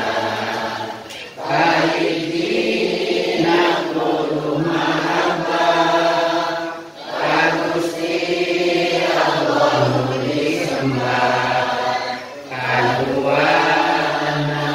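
Voices chanting a nadhom, Islamic devotional verse sung in long held phrases, with a short break between phrases about every five to six seconds.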